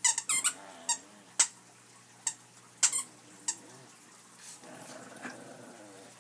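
Two small dogs play-fighting: a run of short, high-pitched squeaks and yips, about eight in the first three and a half seconds, then quieter low grumbles.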